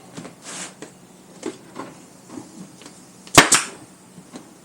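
Pneumatic nail gun firing once about three and a half seconds in: a single sharp crack as it drives a fastener through the seat cover into the seat base. Faint handling clicks come before it.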